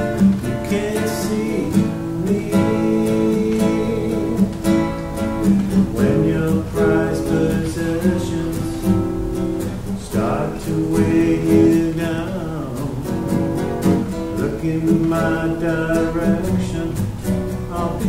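Classical guitar strummed steadily, with a man singing along.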